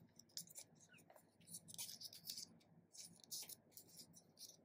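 Faint crinkling and rustling of small paper slips being folded shut by hand, a string of short crackles.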